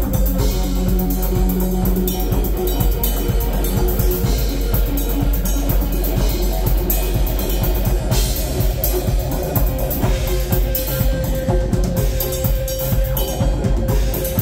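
Live rock band playing: a drum kit hit busily on snare and bass drum under electric guitars with held notes.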